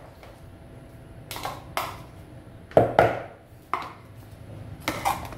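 Spoon knocking and scraping against a small plastic bowl to get butter out into a mixing bowl: a string of sharp knocks with brief ringing, about seven in all, with bowls handled on the counter.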